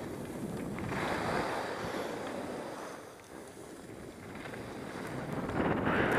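Wind buffeting the microphone and skis hissing over groomed snow during a downhill run; quieter in the middle, louder again near the end.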